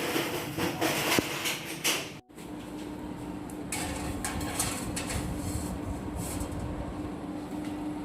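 Kitchen handling sounds: dishes and utensils clattering and scraping, cut off abruptly about two seconds in, then more clatter over a steady low hum.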